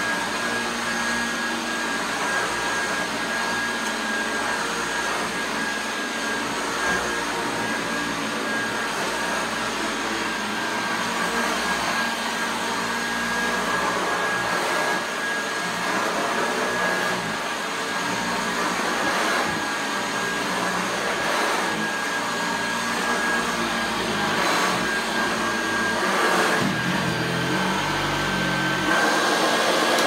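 Hoover Junior U1012 upright vacuum cleaner running steadily: a continuous rush of air with a thin, steady high whine from the motor. The sound shifts a little in the last few seconds.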